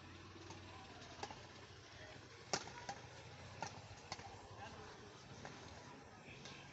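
Badminton rackets hitting a shuttlecock back and forth in a doubles rally: a string of sharp pops at uneven gaps of half a second to a second or so, the loudest a little past two seconds in. A faint steady background noise lies under the hits.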